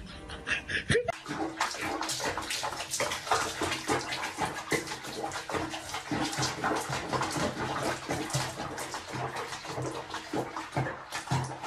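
Water splashing and sloshing around a cat sitting in a sink of soapy water, starting about a second in and going on in irregular bursts.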